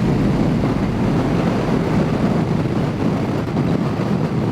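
Royal Enfield Himalayan single-cylinder motorcycle being ridden, its engine running steadily under the rush of wind over the microphone.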